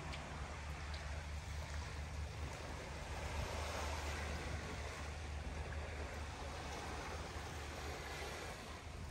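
Steady rushing of wind and sea surf, with a constant low rumble underneath.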